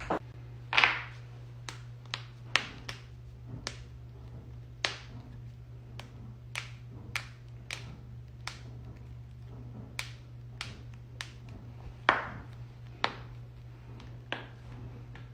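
Human joints cracking: a long run of about twenty sharp cracks and pops at uneven spacing, one or two a second, the loudest near the start and about twelve seconds in, over a steady low hum.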